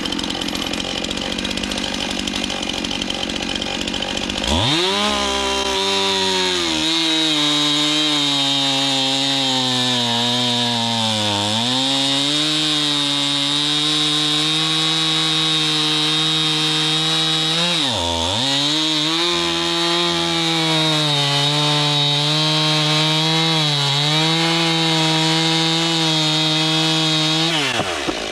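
STIHL MS 291 two-stroke chainsaw running, then opening to full throttle about four seconds in and cutting through a thick log. The engine pitch sags under load as the cut deepens, dips sharply once about two-thirds of the way through, and falls away near the end as the throttle is let off.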